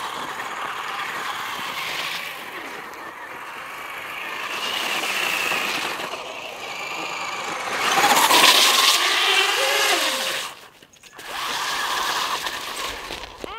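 Traxxas RC monster truck driving on ice and snow, its motor whining up and down in pitch as it speeds up and slows, with the hiss of its tyres on the surface.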